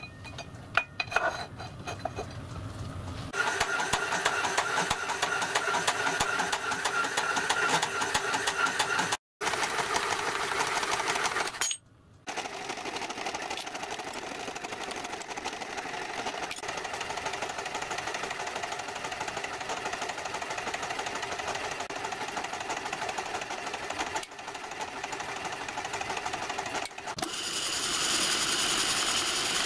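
Metalworking machine tools running in a string of short clips, with a fast, even mechanical rhythm that changes at each cut. About 27 seconds in, it gets louder and brighter as a milling machine's end mill cuts a metal blank.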